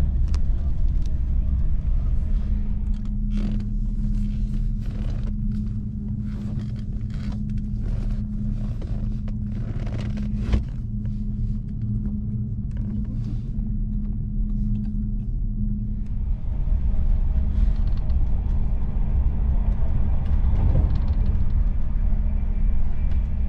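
Running noise inside a Deutsche Bahn IC2 double-decker Intercity coach on the move: a steady low rumble with a hum, overlaid by a run of creaks and clicks from the carriage and one sharp click about ten seconds in. The running noise grows louder and broader about two-thirds of the way through.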